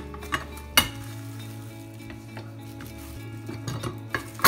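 Plastic sheet of a tortilla press rustling and crinkling as it is peeled back, with a few sharp clacks from the metal press, the loudest about a second in and near the end.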